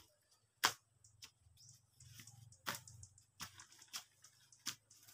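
Footsteps through dry undergrowth: several short sharp snaps of twigs and brush breaking underfoot, the loudest about half a second in.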